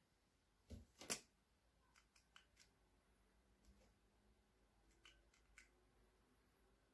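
Two sharp clicks about a second in, the second louder, then a few faint ticks, from a drawing pencil and its small parts being handled.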